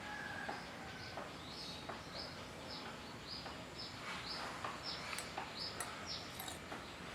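A bird calling in a series of short, high, falling notes, about two a second, starting about a second in and running until near the end, over a steady outdoor background hiss. A few light clicks sound in the second half.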